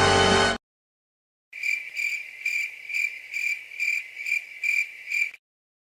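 Stock crickets sound effect: a chirping cricket, about ten even chirps at roughly two and a half a second, starting about a second and a half in and stopping abruptly near the end. Music cuts off about half a second in, just before it.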